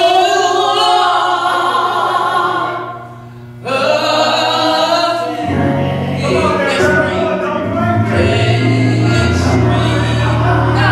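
Gospel singing with long held notes and a short break about three seconds in. From about halfway, a low, sustained instrumental accompaniment joins underneath.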